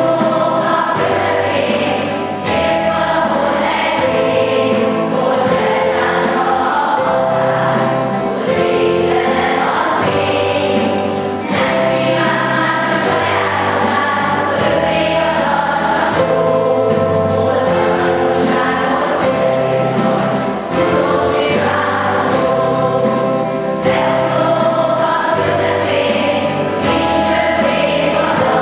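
School children's choir singing with instrumental accompaniment, the voices holding long notes over a bass line that changes chord every second or two.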